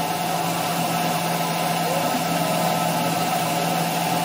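CNC router spindle running steadily as a small flat-ended cutter mills a gear from clear acrylic sheet, with an air jet hissing at the cutter to clear the chips.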